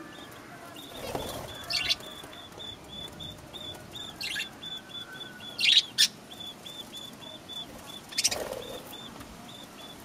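Budgerigars chirping: a steady run of short high chirps, about four a second, broken by several louder calls, the loudest about six seconds in.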